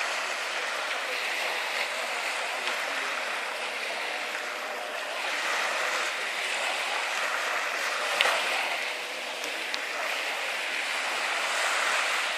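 Sea water lapping and splashing close by, a steady wash of small waves, with one brief sharp knock about eight seconds in.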